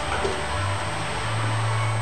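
Background music with a low bass line stepping between notes, over a faint hiss.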